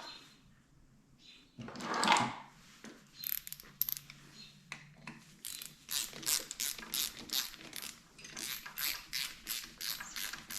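Ratchet wrench clicking as it runs a bolt down, with a steady train of sharp clicks, about three a second, from about halfway in. A short rustling scrape comes about two seconds in.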